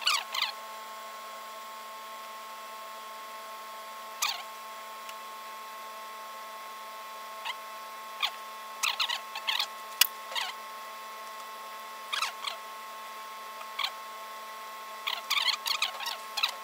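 Rustling and small clicks from hands working a mink coat and hand-sewing it with needle and thread, over a steady background hum. There is one sharp click about ten seconds in, and the handling sounds come thicker near the end as pliers are picked up from among the tools.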